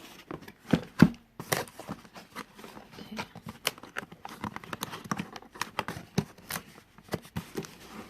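Cardboard box and packaging being handled: irregular crinkles, clicks and light knocks, with two louder knocks about a second in.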